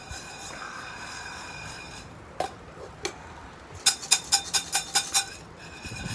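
Metal cookware clinking at a charcoal brazier: a couple of single clinks, then a quick run of about nine ringing metallic taps, roughly seven a second.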